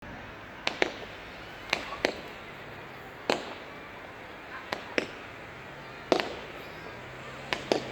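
Fireworks going off: about ten sharp bangs at irregular intervals, often in close pairs, each with a short echo.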